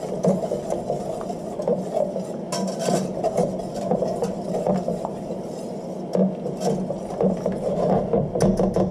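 Wire whisk stirring a flour-thickened chicken-stock sauce with bacon in a metal pan: a continuous swishing scrape with many small clicks of the wires against the pan.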